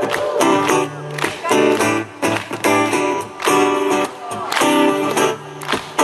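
Acoustic guitar strummed in rhythmic chords, with no singing.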